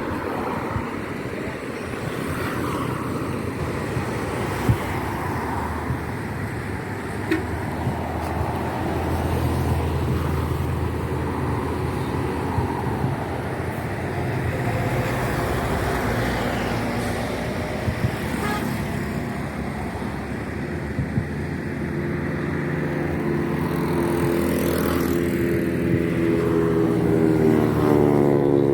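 Steady street traffic noise of motorbikes and cars, with a few short sharp bangs scattered through it. Near the end a nearby engine revs up, rising in pitch.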